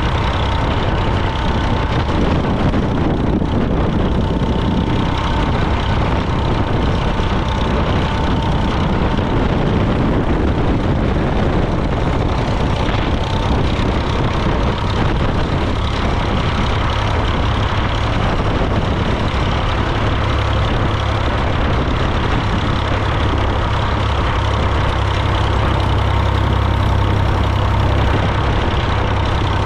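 International 454 tractor's diesel engine running steadily, getting a little louder near the end.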